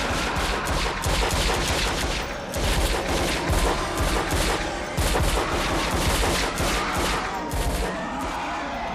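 Film sound of several guns firing at once: a dense, overlapping barrage of shots, several a second, with brief lulls about two and a half seconds in and again near the end.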